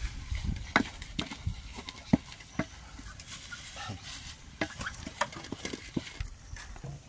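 Wooden stirring stick working thick ugali in an aluminium pot: irregular knocks and scrapes of the stick against the pot.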